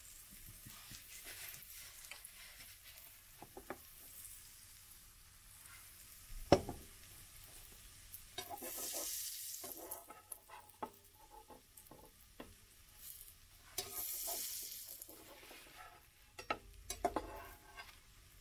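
Pancake batter frying in hot fat in a nonstick pan, a quiet steady sizzle that swells louder twice, about eight and fourteen seconds in. A single sharp click comes about six and a half seconds in, and light clicks and knocks of a slotted metal spatula against the pan follow in the second half.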